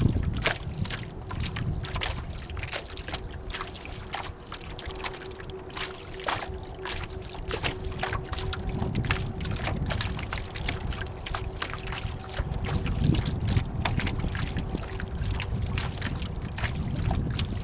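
Water splashing and slapping against a small Snark sailboat's hull as it sails, in many quick irregular splashes. Wind gusts buffet the microphone with a low rumble, and a faint steady hum runs underneath.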